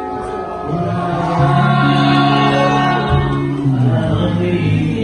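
Church music: voices singing in a chant-like style over held instrumental notes, with a low bass line that steps to a new note every second or so.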